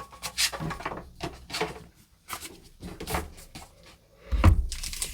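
Trading cards and their cardboard and foil packaging being handled on a table: a string of short rustles, scrapes and light taps, with a dull thump near the end.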